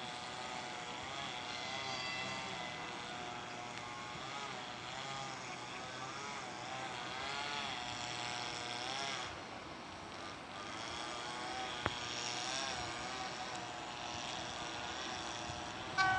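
Four 2ES5K 'Ermak' electric locomotives hauling a heavy freight train, approaching from a distance with a wavering hum. A single click comes near the middle. Just before the end the locomotives' horn starts sounding loudly.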